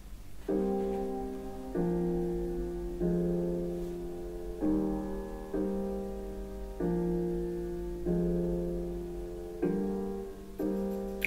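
Piano-led music played back through Xiaomi Mi Computer Speakers: a slow run of chords, a new one struck roughly every second and each fading away, over a steady low hum.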